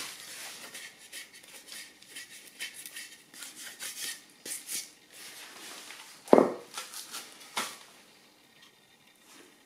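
Hands sliding and turning a block of timber on a wooden board, with rubbing and scraping. There is a solid wooden knock about six seconds in as the block is set down, and a lighter knock about a second later.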